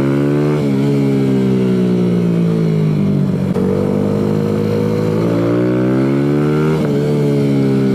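Kawasaki Z125's small single-cylinder engine revving on and off the throttle while riding: the engine note climbs, drops sharply twice, sags in the middle and builds again, over wind noise.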